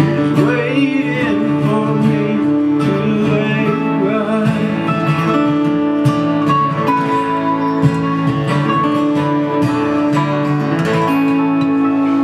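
Two acoustic guitars and a mandolin playing live in a country/bluegrass style: the closing instrumental bars of the song.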